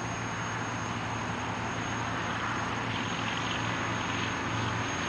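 Steady low drone with a hiss over it, no distinct events.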